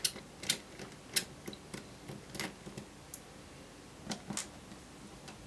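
Sparse, faint clicks and ticks of a small Phillips screwdriver on a laptop's metal hinge screws as they are undone, about seven at uneven intervals with a quiet pause in the middle.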